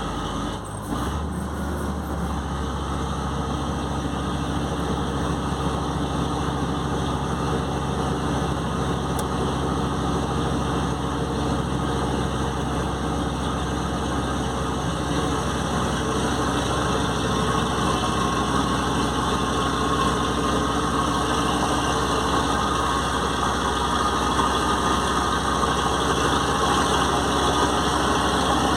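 Mercedes-Benz OM 449 diesel truck engine running steadily, with a change in its low note about a second in and a slow rise in loudness toward the end.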